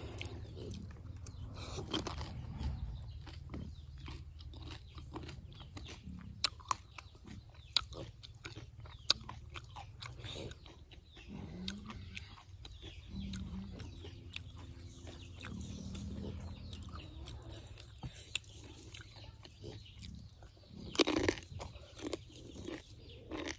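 Close-up crunching and chewing of pani puri: the crisp, hollow fried shells crack between the teeth in irregular sharp snaps, with a few louder cracks and a louder burst of crunching near the end.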